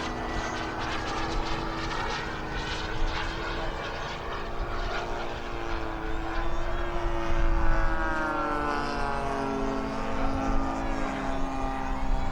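Propeller-driven RC model airplane flying, its motor and propeller buzzing steadily with a pitch that rises and then falls as it passes, about halfway through.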